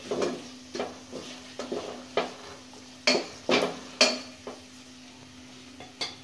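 A spoon scraping and clinking against a pot as chicken pieces are stirred with spices, in irregular strokes with the loudest few about three to four seconds in, then stopping, under a light sizzle of the chicken in hot oil.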